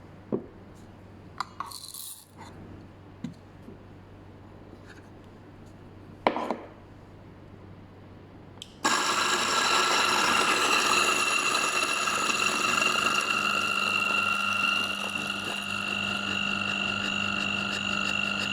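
A few light knocks and clicks, then a little past halfway the DF64 flat-burr coffee grinder's 64 mm burrs start up and run steadily, grinding beans with a high, steady whine over a gritty rasp.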